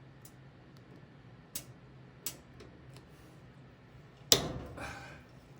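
Faint metallic clicks of improvised picks working the pin tumblers inside a vintage Steelcase desk drawer lock, spaced irregularly, then one much louder sharp click about four seconds in with a short rattle fading after it.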